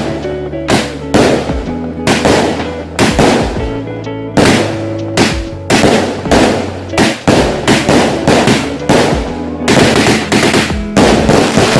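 Fireworks going off in a quick, uneven run of bangs, about two a second, over background music with steady held notes.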